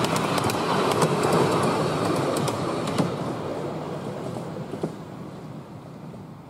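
Miniature railway carriages rolling past and away on 10¼-inch gauge track: a rattling run of wheel clicks over the rail joints for the first few seconds, then a rumble that fades steadily as the train recedes.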